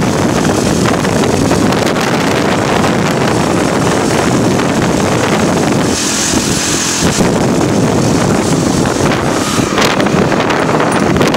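Wind buffeting the microphone while riding a motorbike at speed, over the steady running of the bike's engine and road noise. There is a brief higher hiss about six seconds in.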